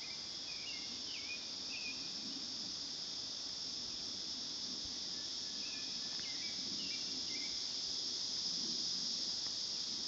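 Steady, high-pitched insect chorus droning without a break, typical of a summer forest. Two brief clusters of short chirping calls sound over it, once near the start and again a little past the middle.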